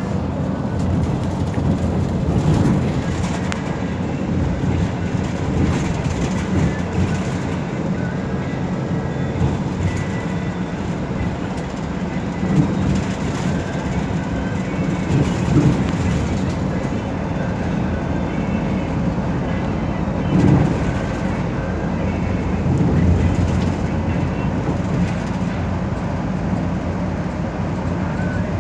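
Inside a moving metropolitan express bus: steady engine drone and road rumble, with interior rattles and a few louder knocks from bumps.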